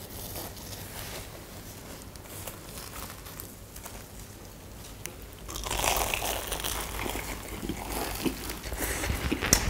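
Gloved hands rustling faintly as they pick sugar-coated fried twisted doughnuts (kkwabaegi) off a pile. About halfway through, several people bite into the crisp fried crust and chew, louder, with many small crackles.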